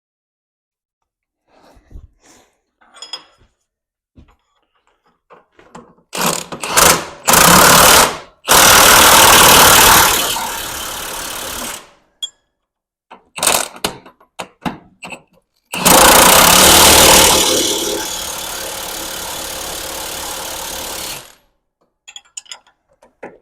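Power impact wrench hammering on the torsion bar's fasteners: a few short trigger pulls, then two long runs of several seconds each, loud at first and easing to a lower steady rattle before cutting off.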